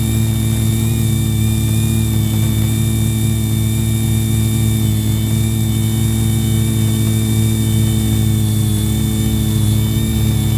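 Quadcopter's electric motors and propellers spinning with a loud, steady whirring hum that holds one pitch throughout, heard close up from a camera mounted on the quadcopter's frame.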